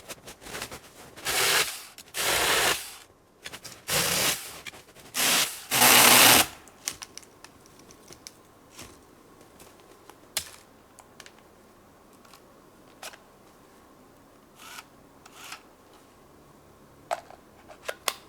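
Tomyvic 6-inch battery-powered mini chainsaw cutting branches in several short bursts during the first six seconds or so. After that it stops, its battery run flat, leaving only scattered clicks and snaps.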